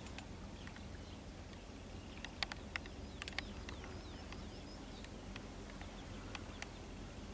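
Quiet pond-side outdoor ambience: faint bird chirps and scattered sharp clicks and ticks, bunched about two and a half to three and a half seconds in, over a low steady hum.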